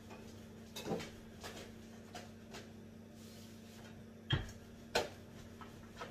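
Kitchen handling sounds: scattered light clicks and knocks, then two sharper knocks about four and five seconds in, over a faint steady hum.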